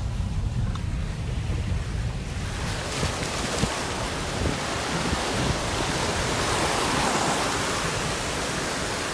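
Low rumble of a car moving slowly over a rough, stony road, then from about two and a half seconds in the rushing of a mountain stream cascading over rocks beside it swells and stays loud, with a few short knocks along the way.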